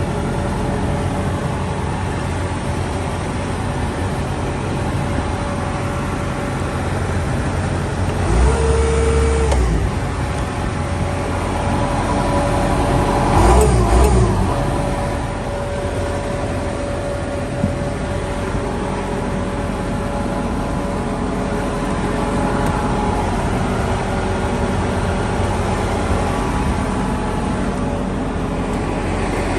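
Diesel engine of a Bobcat T650 compact track loader running steadily, getting briefly louder twice, about a third of the way through and again near the middle.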